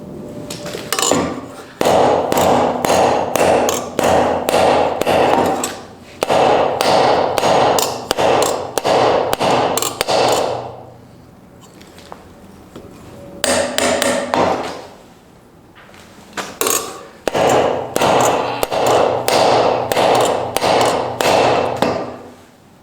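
Hammer blows struck in quick runs on a handmade wrought-iron anvil's horn, each run ringing, with short pauses between runs. This is a deliberate stress test of the anvil's forge welds.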